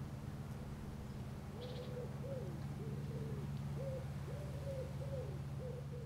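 A bird giving a quick series of short hooting notes, about two a second, starting a second and a half in, over a steady low hum.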